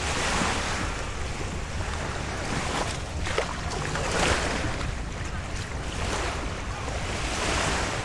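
Small Lake Michigan waves lapping and washing onto a sandy shore, the wash rising and falling every couple of seconds, with wind rumbling on the microphone.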